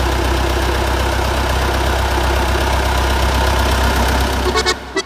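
Vintage tractor engine idling steadily at a constant low pitch.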